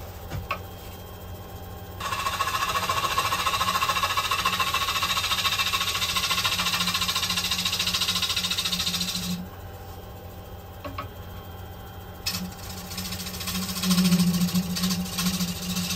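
Wood lathe running with a steady hum while a turning tool cuts the centre of a spinning sycamore platter, making a rough scraping sound. The cut runs from about two seconds in to about nine, pauses to just the lathe hum, then starts again about twelve seconds in and is loudest near the end.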